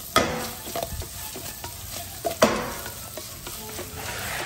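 Asparagus spears sizzling in butter in a frying pan, with small crackles and two louder clatters about two seconds apart as the pan is shaken and the stalks tumble.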